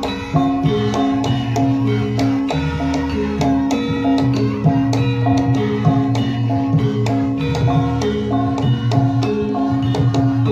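Javanese gamelan music: a hand drum plays a quick, busy pattern over struck pitched percussion holding steady notes.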